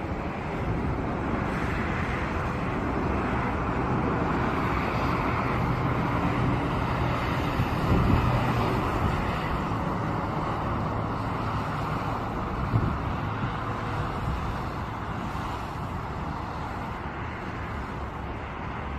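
Airbus A321neo on final approach, its Pratt & Whitney PW1100G geared turbofans giving a steady jet rush and rumble that swells, holds, then eases. Wind gusts on the microphone, most strongly about halfway through.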